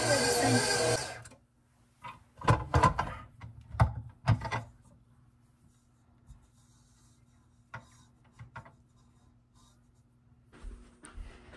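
Background music cuts off about a second in. Then come a handful of loud knocks and clatters as a stand mixer's stainless steel bowl and dough hook are handled, followed by a few soft clicks over a faint low hum.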